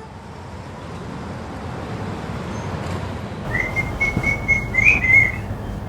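Background hiss fading in, then from about three and a half seconds in a high steady whistling tone, held in short pieces with a brief rise near the end.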